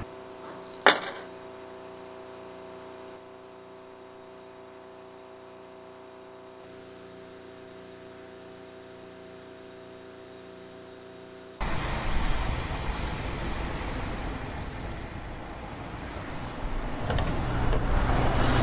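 A sharp click with a brief ring about a second in, then a steady hum of several held tones, which cuts abruptly to street noise with car traffic that grows louder near the end.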